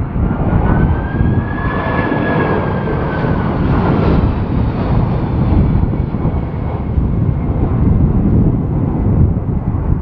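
Airbus A330 jet engines on final approach passing close by: a loud rumble with a fan whine that climbs in pitch for about two seconds and then drops away, over heavy wind buffeting the microphone in a strong gusty crosswind.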